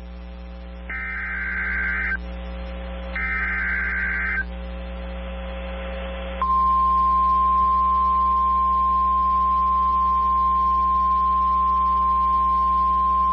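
NOAA Weather Radio emergency alert: two raspy bursts of SAME digital header data, then the steady single-pitch 1050 Hz warning alarm tone starting about six seconds in. The tone signals that a warning, here a severe thunderstorm warning, is about to be read. Low radio hum and hiss lie underneath.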